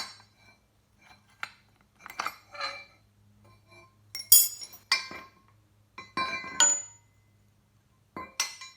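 Steel mower caster parts clinking and knocking as the wheel bolt is pulled out of the front caster fork and the wheel hardware comes loose: a handful of separate clanks, several with a short metallic ring, the loudest about four seconds in.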